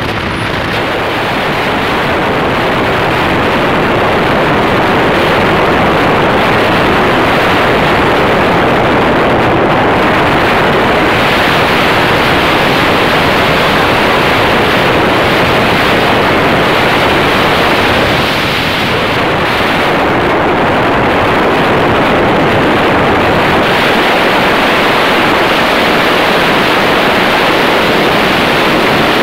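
Loud, steady rush of wind and road noise from a vehicle moving through a road tunnel, with a brief dip about 18 seconds in.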